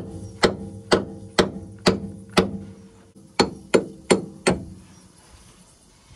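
Hammer blows on steel at a truck's leaf-spring eye: a run of about six blows at roughly two a second, a pause of about a second, then four more, each ringing briefly.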